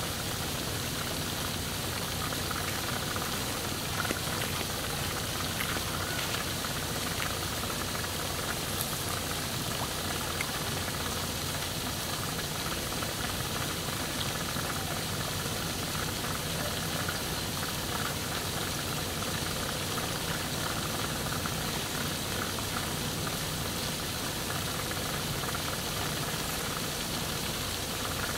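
Steady, even background hiss of outdoor ambient noise, with scattered faint ticks.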